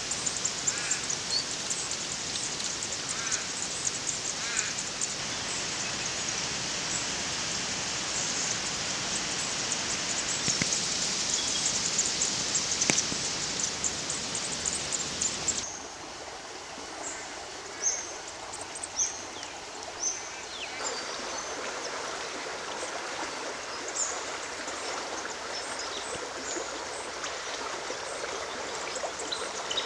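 Small birds chirping in short, high calls over a steady rushing hiss; the hiss drops a little about halfway through.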